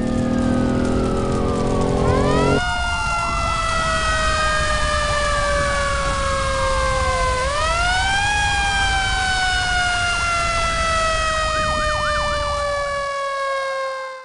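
Fire truck siren wailing, several tones sliding slowly up and down in pitch and overlapping, over a low rumble. It cuts off suddenly at the end.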